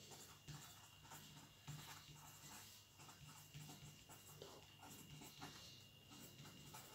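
Pen scratching faintly on a paper notepad in short, irregular strokes as words are written.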